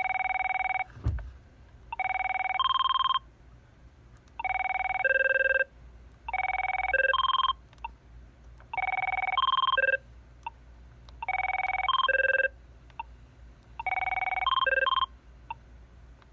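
Avaya 9621G desk phone playing its default electronic ringtones: short ring bursts about every two and a half seconds, each a few steady electronic tones, the tone pattern changing from burst to burst as one default ringtone follows another.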